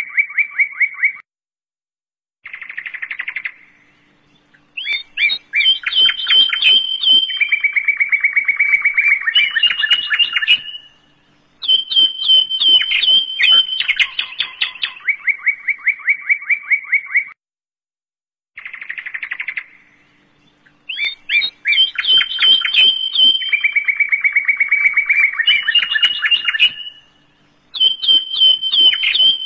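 Bird-like rapid chirping trills and whistled notes, a looped track that repeats the same phrase sequence about every sixteen seconds, with short pauses between phrases.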